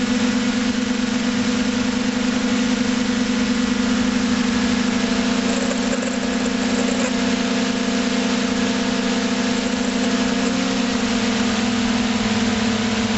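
Electric motors and propellers of an FPV drone, picked up by its onboard camera: a steady, high-pitched hum with a constant whirring noise, wavering slightly in pitch about ten seconds in.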